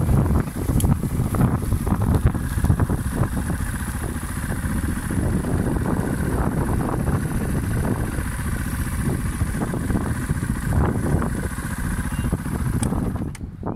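Beta Alp 200's single-cylinder four-stroke engine idling steadily, then switched off near the end, when the sound stops suddenly.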